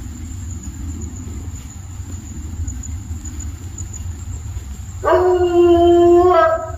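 Steady low rumble, then about five seconds in a coonhound lets out one long howl that holds its pitch and dips slightly just before it ends.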